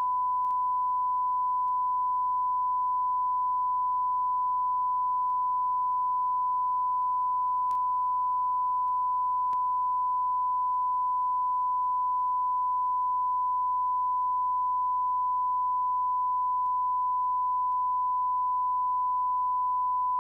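BBC closedown test tone: the steady 1 kHz line-up tone transmitted with the test card after the station has closed down, one unchanging pure pitch held throughout.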